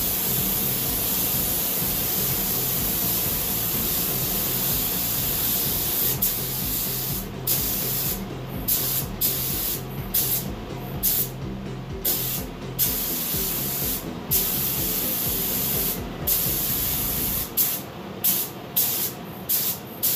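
Compressed-air paint spray gun hissing steadily. From about six seconds in, the hiss breaks into many short bursts with brief gaps between them as the trigger is pulled and released.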